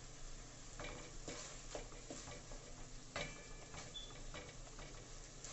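Beef strips frying with a faint sizzle in a heavy metal pot while a wooden spoon stirs them, giving a run of knocks and scrapes against the pot. The loudest knock comes about three seconds in.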